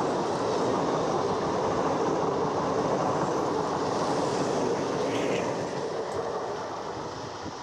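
Electric multiple unit (EMU) local train passing at speed close by, its coaches and wheels rumbling steadily on the track; the sound fades over the last couple of seconds as the end of the train goes by.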